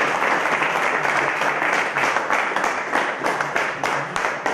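A team of players applauding together: dense clapping that thins to separate claps near the end.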